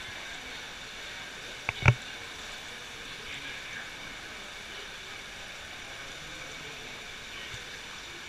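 Steady rush of a stream flowing through a cave, with one brief loud sound about two seconds in.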